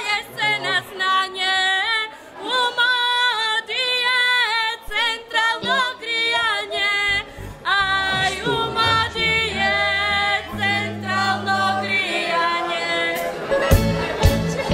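Live band music led by a singing voice holding long, sliding notes over sparse accompaniment; a bass line joins about halfway through and drums come in near the end.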